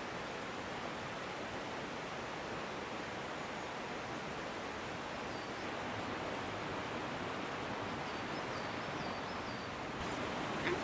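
Steady outdoor ambient rushing noise, with faint high chirps about halfway through and again near the end, and a short sharp knock right at the end.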